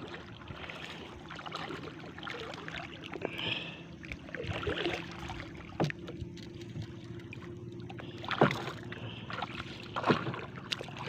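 Small fishing boat at sea: a faint steady hum with water sounds around the hull, broken by a few sharp knocks.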